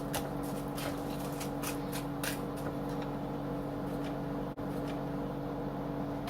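Plastic bag of frozen mixed vegetables rustling and crinkling as it is handled, with irregular crackles over the first couple of seconds and fewer after. A steady low hum runs underneath.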